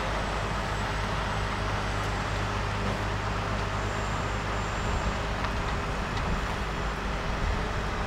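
Heavy wrecker tow truck's diesel engine running steadily with a low hum.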